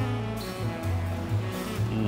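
Background jazz music with a bass line that moves in steady notes about every half second.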